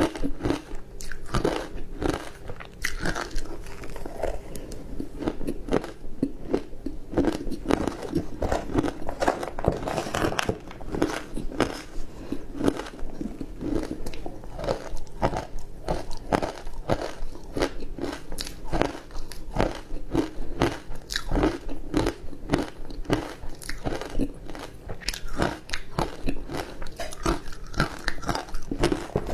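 Close-miked biting and chewing of ice coated in matcha powder: a steady run of sharp, crunchy cracks, several a second, as the ice is crushed between the teeth.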